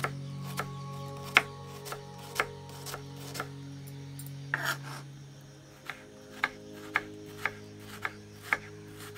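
Knife slicing small red onions on a wooden cutting board: sharp chops about two a second, with a short pause in the middle, over soft background music.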